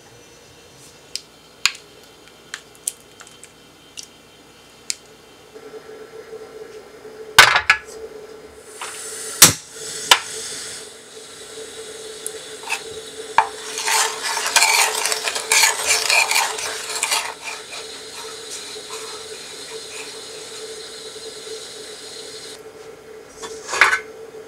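Wooden spoon stirring and scraping a passion fruit and gelatine mixture in a stainless steel saucepan on a portable gas stove, with a few sharp knocks of the pan and spoon against the metal. A steady hiss, from the burner on low heat, cuts off shortly before the pan is lifted with a last knock.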